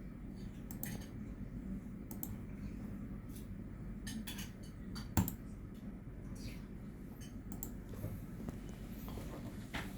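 Irregular light clicks and taps, with one sharper knock about five seconds in, over a steady low hum.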